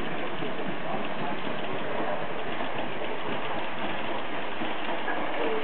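Märklin model of a Ludmilla diesel locomotive running with its sound decoder on, giving a steady diesel-engine and rolling noise without pauses.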